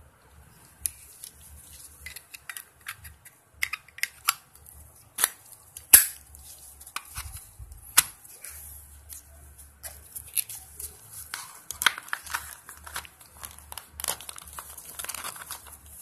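Gloved hands handling a Zippo lighter, its fuel insert and its cardboard gift box: a string of sharp clicks and taps, the loudest about six seconds in, with rustling and crinkling of the packaging near the end.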